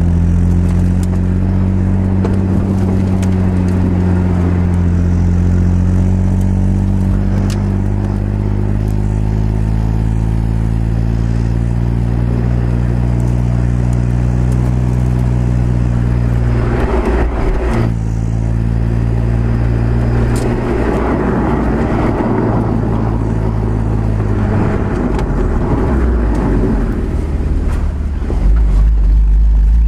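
Audi A4 3.0's V6 on its stock exhaust, heard right at the driver-side tailpipe while driving: a steady low exhaust drone at nearly constant revs. From about halfway, a rough rushing noise sits over it, and near the end the drone gets louder and deeper.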